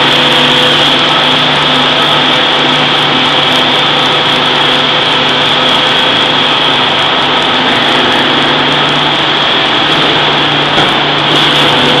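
Forging hammer machinery running steadily, a loud continuous hum with a high whine and no hammer blows, while the ram is held raised over a red-hot billet. One light knock near the end.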